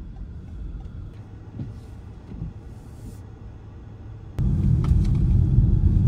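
Low, steady rumble of road noise inside a moving car's cabin as it drives on a snowy road, jumping suddenly louder about four and a half seconds in.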